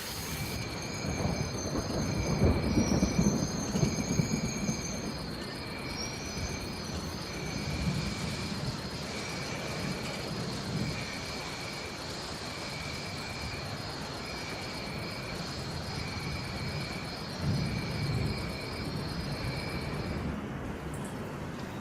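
Steady rain with low rumbles of thunder, the loudest a few seconds in and another near the end. Jungle animal calls run over it: a short high note repeated about every second and a half, a steady high-pitched drone, and warbling calls in the first several seconds. The calls all stop together shortly before the end.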